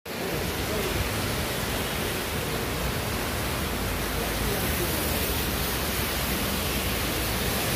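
Heavy rain pouring onto a wet street, a steady, loud hiss, with the tyres of passing cars swishing through the water on the road.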